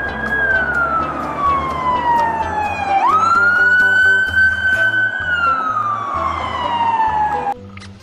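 Police siren in a slow wail: a tone that falls over about three seconds, jumps back up, holds, then falls again and stops just before the end. Background music plays under it.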